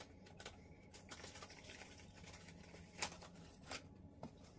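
Near silence, broken by a few faint clicks and rustles of a perfume box being handled, the loudest about three seconds in.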